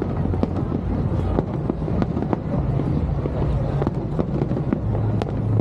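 Fireworks display going off without a break: many sharp cracks and pops in quick irregular succession over a dense low rumble.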